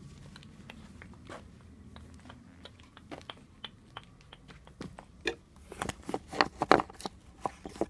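Handling and rummaging noise: scattered clicks, taps and crunchy rustles that grow louder and more frequent about five seconds in.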